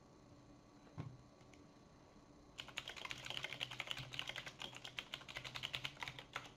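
Fast typing on a computer keyboard: a run of quick keystrokes starts about two and a half seconds in and lasts about four seconds. A single click comes about a second in.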